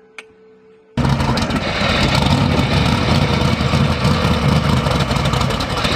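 BriSCA F1 stock car engine running loud and close, cutting in abruptly about a second in after a faint steady hum.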